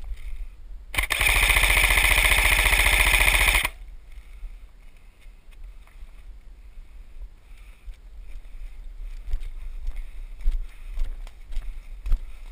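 Airsoft gun firing one continuous full-auto burst of about two and a half seconds, starting about a second in: a loud, rapid, even stream of shots that cuts off abruptly.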